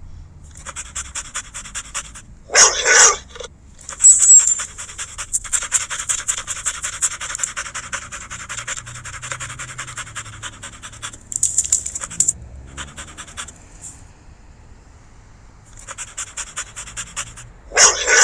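Dog sound effect of the Google 3D augmented-reality Rottweiler: fast, steady panting, broken by a few short, loud barks.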